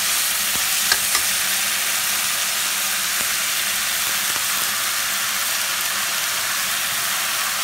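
Diced potatoes, tomato and spices frying in hot oil in a steel kadai: a steady sizzle, with two light clicks about a second in.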